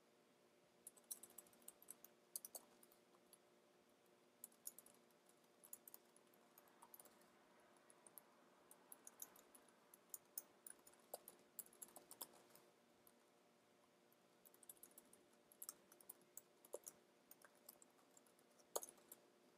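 Faint computer keyboard typing: irregular keystrokes in short runs with pauses between them, over a low steady hum.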